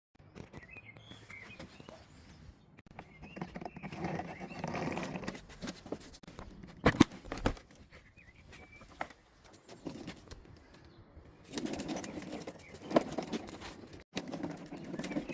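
Birds calling, with cooing and short chirps, and a sharp knock about halfway through.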